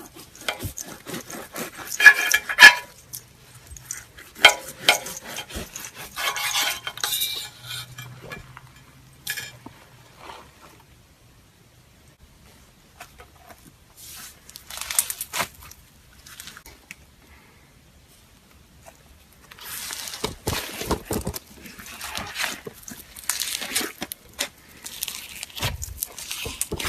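Slime being handled by hand: irregular bursts of clicking, crackling and sticky popping, with a few sharper clinks, and a quiet stretch in the middle.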